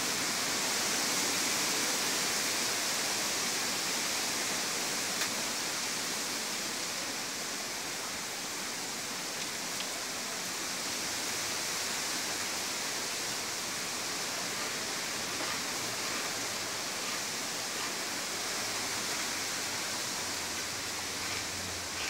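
Strong storm wind rushing through the leaves of trees and palms: a steady high hiss of thrashing foliage that swells slightly and eases.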